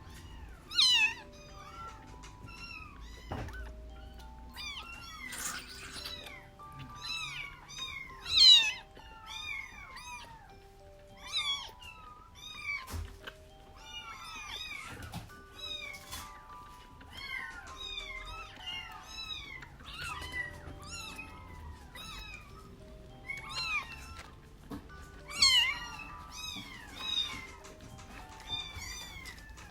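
About week-old kittens mewing over and over in short, high cries that rise and fall, with louder squalls about a second in, near 8 seconds and near 25 seconds, and an occasional knock, over soft background music.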